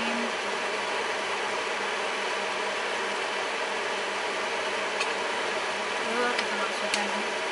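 Steady whirring hum of a running kitchen fan, with a few faint clicks in the second half.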